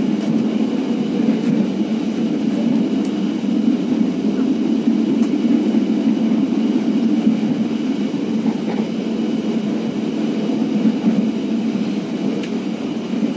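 Steady rumble of an economy-class passenger train carriage running at speed, heard from inside the carriage, with a few faint clicks from the running gear.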